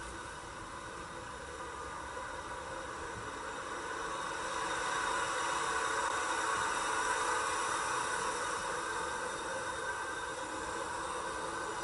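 Multiple tie tamper track-maintenance machine moving along the rails past the microphone, a steady hissing noise that grows louder as it approaches, peaks a little past the middle and eases slightly. Heard through a live camera's microphone and re-recorded off a screen, which adds a flat hiss.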